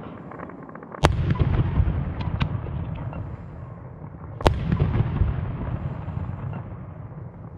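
Fireworks: two loud aerial shell bursts about three and a half seconds apart, each followed by a low rolling rumble, with smaller crackling pops in between.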